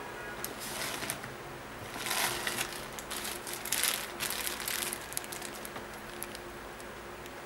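Crinkling of a clear plastic bag of spare shoelaces being handled, in two bursts: about two seconds in, then again for about a second around the four-second mark.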